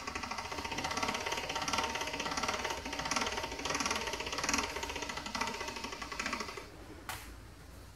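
Hand-cranked stainless-steel pasta machine turning, its rollers and gears clattering steadily as a sheet of dough is pressed thinner at roller setting two. The cranking stops shortly before the end, followed by a single click.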